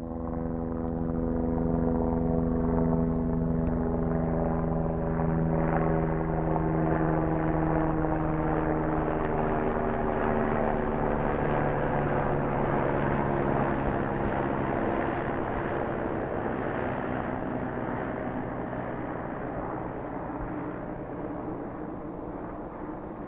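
Helicopter flying by: a fast, steady rotor beat under a hum of several tones. It is loudest in the first few seconds, then drops slightly in pitch and slowly fades as it moves away.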